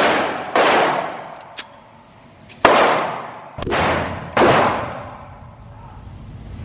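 Semi-automatic pistol fired about five times at uneven intervals in an indoor shooting range, each shot a sharp crack followed by a long echoing tail.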